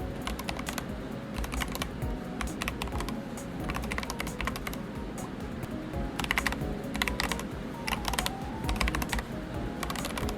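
Typing on a Lofree Touch mechanical keyboard: quick runs of key clacks that come in bursts with short pauses between. Soft background music plays underneath.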